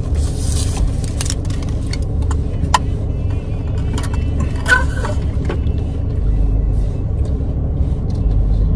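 Eating sounds, a few small clicks and rustles, over a steady low rumble.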